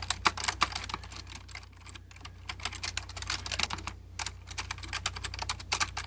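Typing on a Matias Quiet Pro keyboard: a quick, uneven run of key clicks from its dampened Alps-type switches, over a faint low hum.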